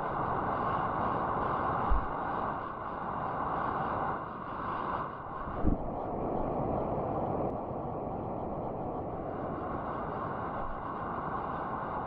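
Stream current heard underwater through an action camera's housing: a steady, muffled rushing, with a soft knock about two seconds in and another near six seconds.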